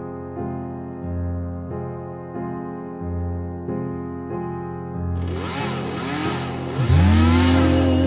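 Slow piano music, then about five seconds in a Poulan Pro gas chainsaw comes in and becomes the loudest sound. Its engine revs up and down as it cuts into a tree limb, while the music carries on faintly.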